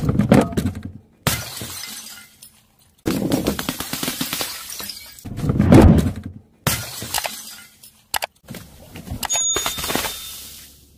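Glass bottles smashing and shattering in a run of separate takes with abrupt cuts between them, each a crash followed by crackling and tinkling of broken glass; the loudest crash comes about halfway through.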